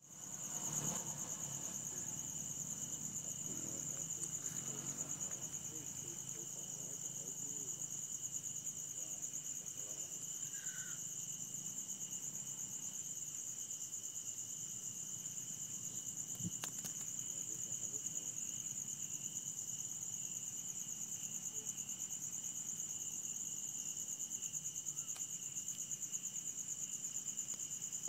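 Night insect chorus: a steady, unbroken high-pitched trill with a fainter, lower trill beneath it. A single faint click sounds a little past halfway.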